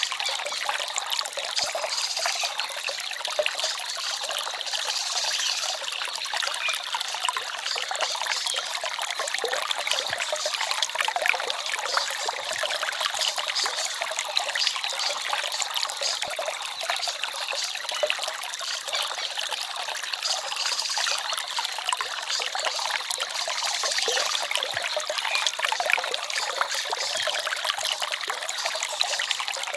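Forest stream babbling and trickling, a steady run of water with many small splashes.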